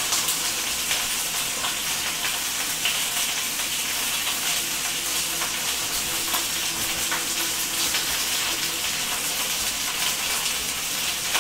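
Chicken thighs frying in a skillet: a steady sizzle with small pops and crackles.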